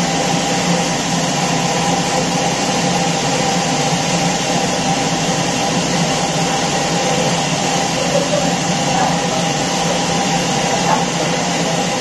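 Log band sawmill running with a steady mechanical hum and whir: the electric motor, belt drive and band saw going continuously while a large log rides on its rail carriage.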